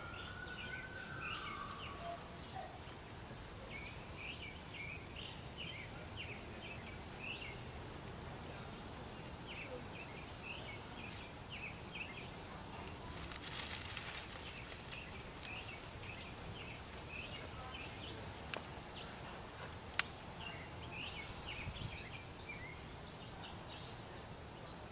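Small birds chirping on and off in the background, with a few seconds of dry leaves crackling about halfway through and a single sharp click later.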